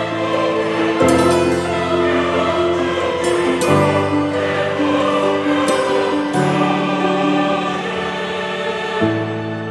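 Background music: a choir singing slow, sustained chords that change every second or two.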